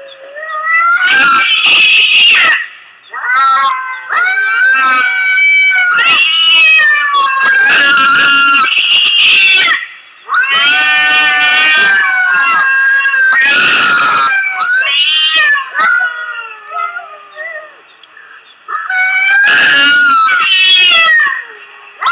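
Cats fighting, heard from a cat-fight video being played back: long wavering yowls and caterwauls mixed with harsh screeches. The yowling comes in loud spells with brief lulls at about 3 s, 10 s and 18 s in.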